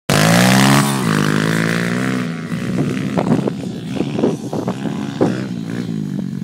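Demon X 125 pit bike's 125cc single-cylinder engine revving up at the start, holding a steady note, then running unevenly with sharp crackling pops from about two seconds in.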